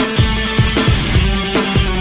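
Rock music with guitar and a fast, steady drum beat.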